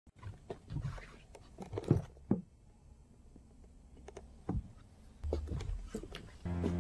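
Scattered faint clicks and rustles, then music comes in near the end with sustained notes.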